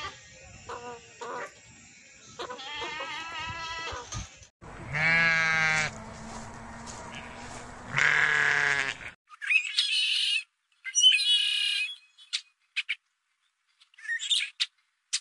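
Goats bleating several times, then a sheep giving two long, loud bleats. From about nine seconds in, a southern lapwing gives harsh, high calls in several short bursts with silences between them.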